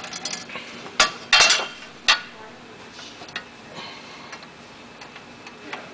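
Hard clicks and clacks of metal parts being handled and set on a Toko 4750 offset press's sheet feeder, its side guides and rods. A sharp click about a second in, a quick cluster just after, another near two seconds, then fainter taps; the press itself is not running.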